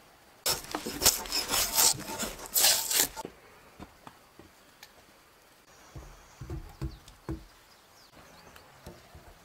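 Dry leaf litter and twigs crunching and crackling underfoot for about three seconds, then a few dull knocks as a peeled log is laid on a dry-stone wall.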